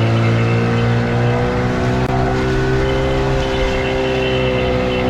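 Outboard motor running steadily at speed, its pitch rising slightly and settling about halfway through.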